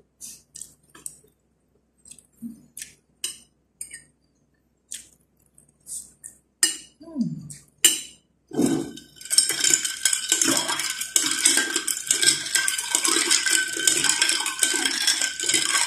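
Metal spoon and fork clicking and scraping on a ceramic plate in scattered short strokes. About halfway in, a spoon starts stirring ice in a glass jar of cola: a continuous loud clinking rattle with a steady ringing tone.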